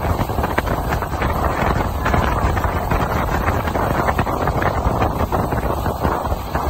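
Wind buffeting the phone's microphone over the steady rush of a small boat under way across calm water.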